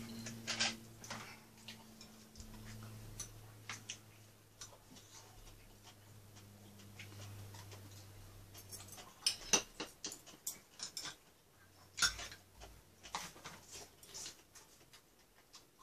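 Scattered light clicks and taps of chopsticks and spoons against bowls and dishes during a meal, a few sharper ones in the second half, over a faint steady low hum.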